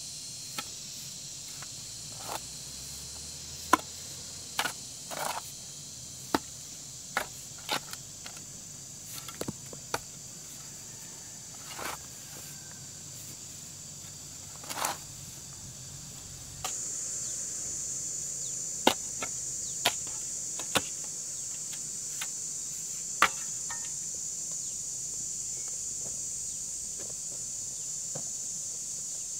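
A steady, high-pitched insect chorus, which grows louder a little over halfway through, with scattered sharp knocks and taps at irregular intervals.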